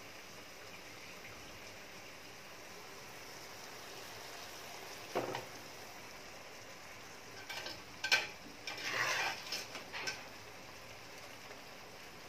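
Half-cooked basmati rice scooped with a wire spider strainer and tipped into a wide pan, over a steady faint hiss. A dull thump comes about five seconds in, then a run of clinks and scrapes of the metal strainer against the pan between about seven and a half and ten seconds.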